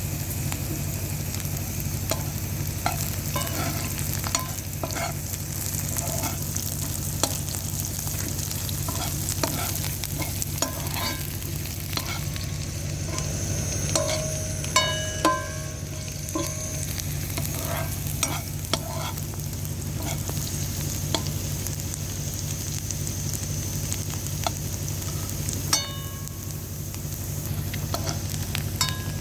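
Food frying steadily in a pan, with a utensil stirring and now and then striking the metal pan so it rings briefly.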